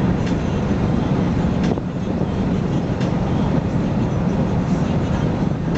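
Chevrolet Caprice engine running steadily, a low even rumble, with a few faint sharp clicks over it.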